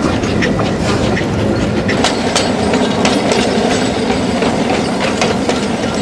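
Small steam train running, heard from an open carriage window: a steady rumble of wheels on the rails with irregular sharp clicks as the wheels cross rail joints.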